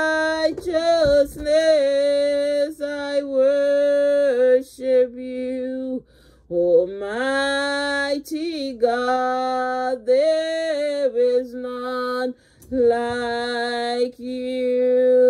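A woman singing a worship song with one voice and no clear accompaniment, in long held phrases with short pauses for breath about six seconds and twelve seconds in.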